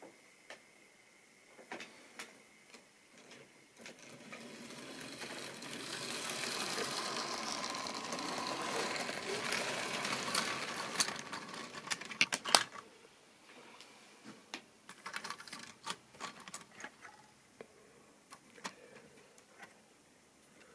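Model railway train of tank wagons running over sectional track, a rattling run of wheel clicks that builds from about four seconds in and is loudest as the wagons pass close by, with a few sharp clicks just before it drops away. Scattered single clicks follow.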